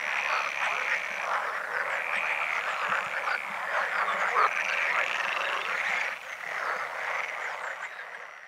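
A dense chorus of croaking frogs, many calls overlapping at a steady level, fading away near the end.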